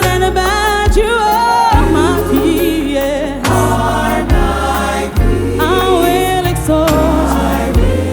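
Live gospel worship music: singers and a choir over a band with keys, bass guitar and drums. The sung lines bend and waver, and deep bass notes change every second or so.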